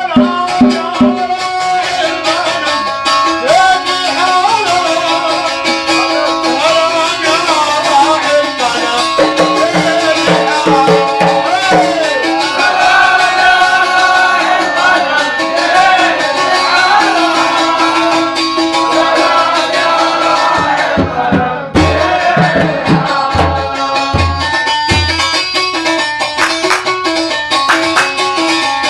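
Gulf folk khabiti music played by a folk band: a wavering melodic line over shaker-like rattle percussion. Heavy drum strokes join about three quarters of the way in.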